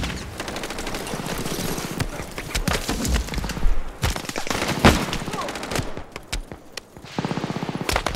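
Battle gunfire: scattered rifle shots mixed with bursts of machine-gun fire, ending in a fast, even burst of automatic fire.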